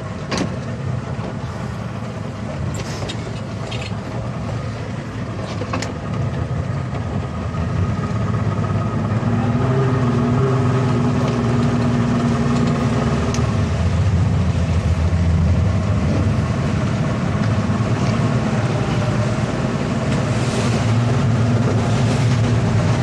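A towboat's engines running underway, a steady drone that gets louder about eight seconds in as the throttle comes up.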